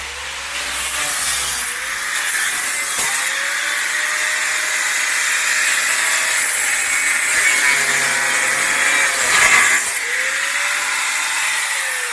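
Power tool cutting through rusty steel chassis rail, running continuously with a hissing, grinding noise; its note sags and recovers again and again as the tool bites into the metal.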